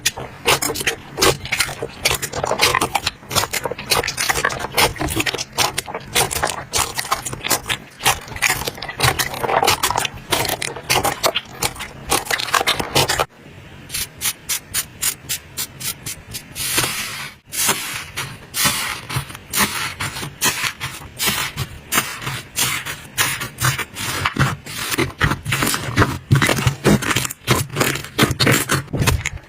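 Slime being squeezed and poked by hand, giving a dense run of sticky clicks, pops and crackles, with short breaks about 13 and 17 seconds in.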